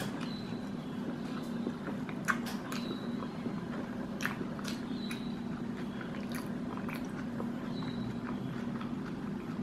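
Chewing a mouthful of Spicy McChicken burger: scattered wet mouth clicks and smacks at irregular intervals over a steady low hum.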